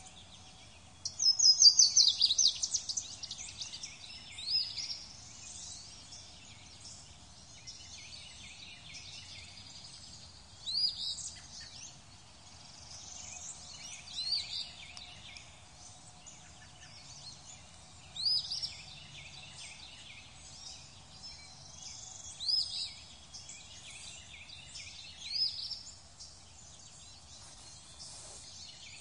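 Chorus of birds chirping and singing: a loud rapid trill about a second in, then a louder rising call that comes back every three or four seconds over continuous twittering.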